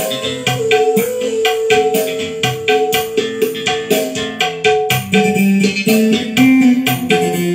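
Recorded music played through a sound system with a 12-inch speaker and no subwoofer, mixer tone controls set flat: a keyboard melody over a steady percussion beat.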